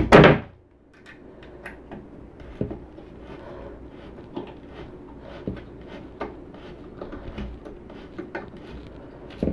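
A knock at the very start, then faint, irregular clicks and scrapes as a long metal screw is twisted in by hand through the corner of a storage box's panel.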